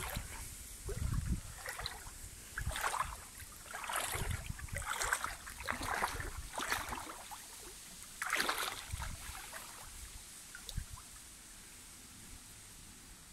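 Small-river water splashing and sloshing in a string of short, irregular splashes, fading after about nine seconds to a faint steady wash.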